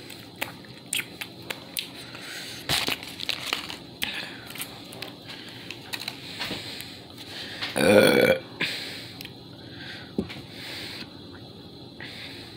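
Clicks and crinkles of eating and handling food, then one loud burp about eight seconds in, lasting under a second.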